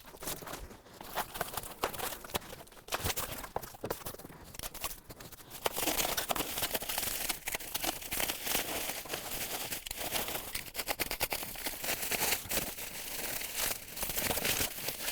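Packing material being stripped off a new bicycle: plastic and foam wrapping crinkling and tearing, with scattered clicks and rustles. It gets busier and louder about six seconds in.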